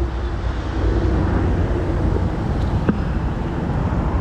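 Steady street traffic noise with a deep rumble, and one short knock about three seconds in.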